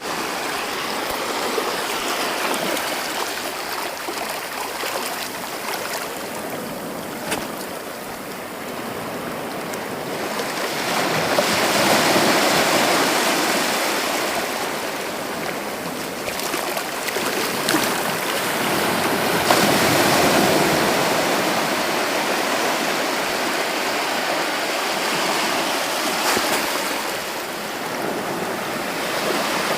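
Sea waves breaking and washing up a beach, a continuous rush of surf that swells twice, about a third of the way in and again about two thirds in.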